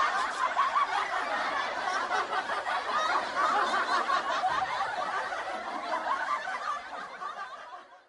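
A group of people laughing and chuckling together, many voices overlapping, fading out near the end.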